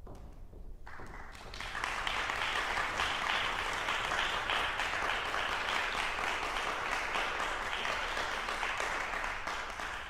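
Audience applauding. The applause starts about a second in, grows fuller within another second, and then holds steady.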